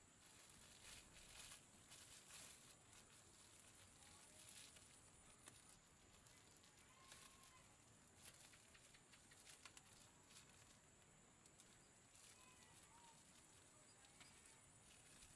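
Near silence, broken by faint scattered clicks and rustles and a few faint short chirps.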